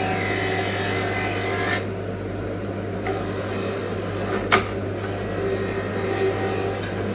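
Wire brush scrubbing rust off a pitted steel planer blade, a harsh rasping over a steady low hum. The scrubbing eases about two seconds in, and a single sharp click comes a little past halfway.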